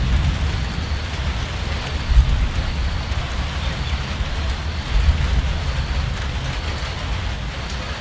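Steady rain falling, an even hiss, over a low rumble that swells briefly about two seconds and five seconds in.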